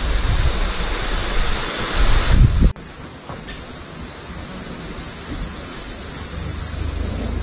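Wind buffeting the microphone with a gusty low rumble, cut off abruptly near the middle, then a steady rushing noise with a constant high-pitched hiss.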